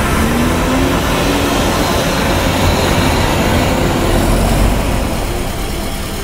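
Honda Integra Type R DC2's engine running as the car drives, the engine note rising in the first second or so over steady road noise, with a heavier low rumble about four seconds in.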